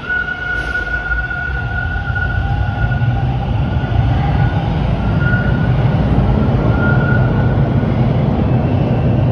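TTC Bombardier T1 subway train pulling out of the platform and accelerating away: a steady high whine over a low rumble of wheels on rail that grows louder, the whine fading out near the end.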